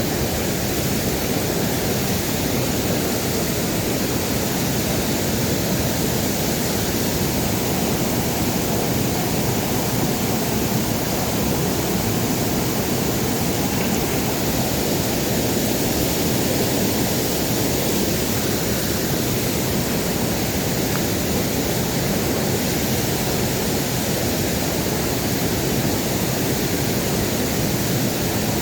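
Waterfall rushing, a loud, steady roar of falling water with no change throughout.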